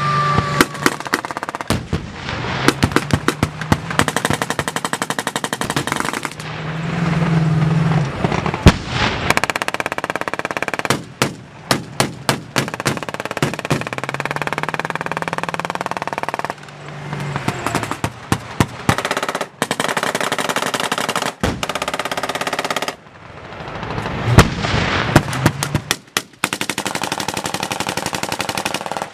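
Belt-fed machine guns firing long bursts of rapid automatic fire, nearly continuous, with a few short breaks between bursts.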